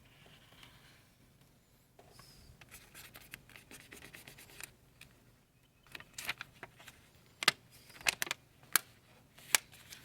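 Vinyl lettering sheet being handled: soft rubbing and scraping, then a series of sharp crackling snaps from the sheet's paper and tape, which are loudest in the last few seconds.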